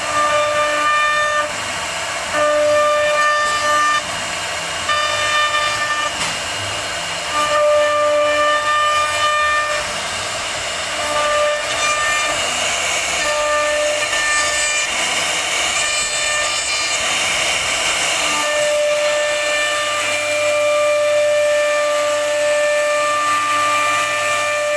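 CNC router spindle whining at a steady pitch as the bit cuts into a wooden door panel, over the hiss of cutting. The whine fades in and out every second or two as the bit works through the carving.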